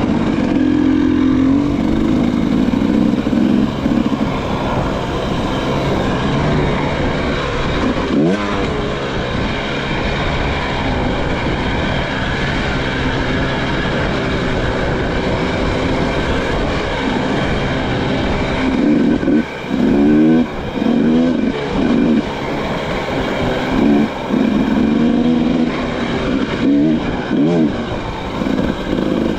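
Dirt bike engine running under way, with the pitch rising and falling as the throttle is worked, including quick revs about eight seconds in and a cluster of throttle blips in the second half.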